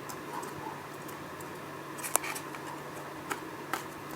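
Several light clicks and taps of thin MDF cutouts as a slotted side panel is pushed into place, two of them close together about two seconds in.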